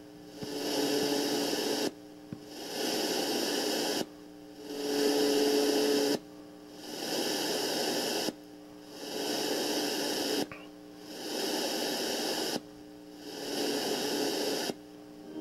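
Homemade RDA5807M FM radio receiver giving static hiss between stations. The hiss cuts out for about half a second every two seconds, once at each channel step, and fades back in each time.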